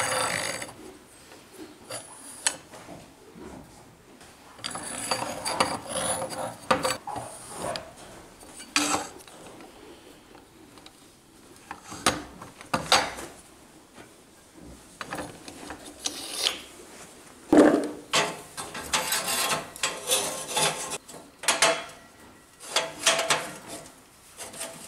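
Intermittent scraping, rubbing and clinking of steel as toothed steel blades and plywood spacer discs are slid onto a steel spindle and handled into place on a homemade charcoal grinder. The clatter is busiest in the second half.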